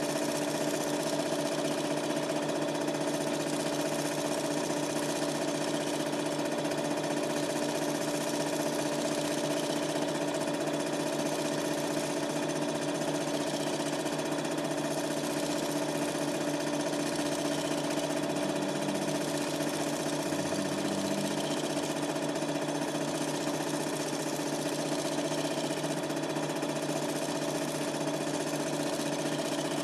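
Super 8 film projector running: a steady mechanical whirr with an even hum, unchanging throughout.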